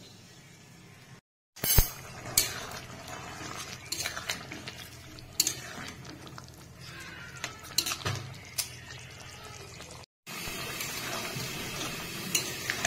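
Wooden spatula stirring watery snail curry in a metal kadai, knocking and scraping against the pan with the liquid sloshing; the loudest knock comes about two seconds in. Near the end a steady hiss of the gravy coming to the boil takes over.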